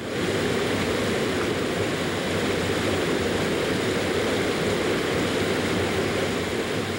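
Water rushing down a rocky cascade, a steady, even rush of white water that cuts in suddenly.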